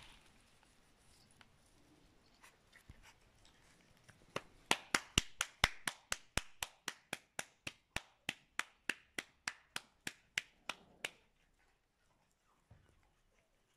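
A person making a quick, even run of sharp clicks, about four or five a second, for roughly seven seconds starting about four seconds in. The clicks call the Yorkshire terrier puppies, which come running.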